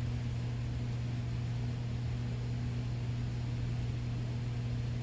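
Steady low hum with an even hiss behind it, unchanging throughout: background room tone.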